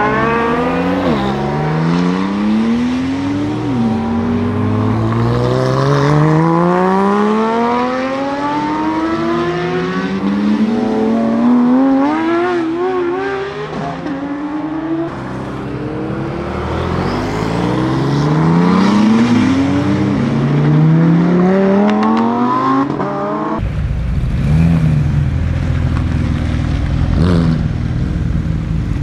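Porsche sports cars accelerating hard away one after another. Each engine note climbs steeply through the revs and drops sharply at every upshift. Near the end this gives way to a steady low engine rumble.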